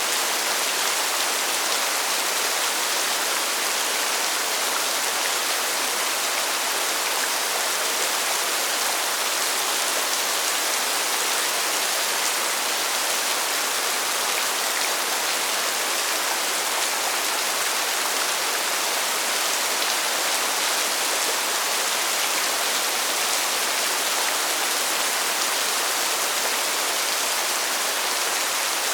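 Steady rainfall, an even hiss with no single drops, thunder or other sounds standing out.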